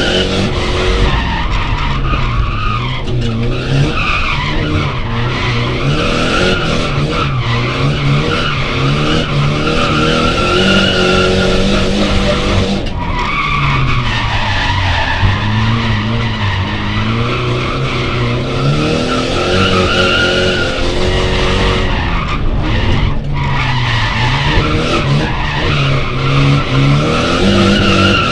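Nissan S14 drift car heard from inside the cabin, its engine revving up and falling back again and again while the tyres squeal and skid through the drifts.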